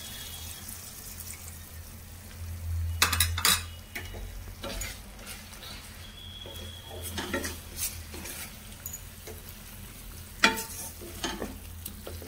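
Sauce sizzling in a wok as cornflour slurry is poured in and stirred to thicken it. A spatula scrapes and knocks against the pan in irregular strokes, the loudest about three seconds in and near the end, over a low steady hum.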